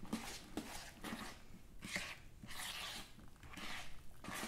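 Thick, wet playdough mixture being stirred in a bowl: soft squishy scraping strokes, about two a second.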